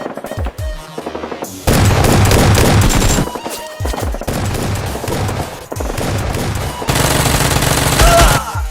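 Rapid automatic gunfire over background music, with two long, loud bursts: one about two seconds in and one near the end.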